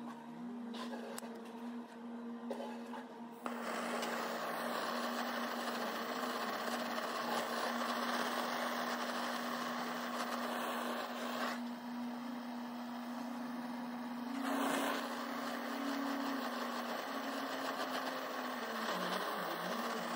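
Handheld gas torch on a screw-on cartridge burning with a steady hiss and a steady low tone underneath, flaming a wooden handle to char it. The hiss grows much louder a few seconds in.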